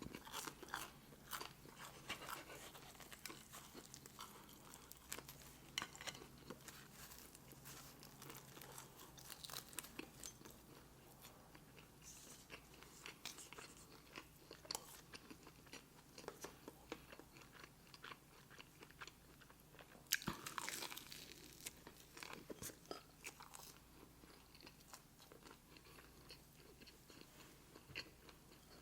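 Faint, close-miked eating: chewing and wet mouth clicks from a person working through a mouthful of pasta and pizza. There is a louder mouth noise about twenty seconds in.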